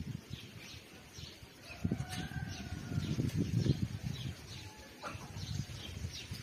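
Small birds chirping repeatedly in the background, short high chirps a few times a second, over louder low rustling and bumping.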